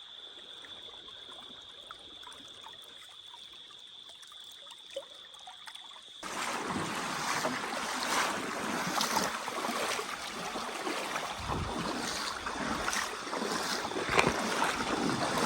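Running river water at the bank. It is quiet at first under a steady high tone, then louder and crackly after an abrupt cut about six seconds in.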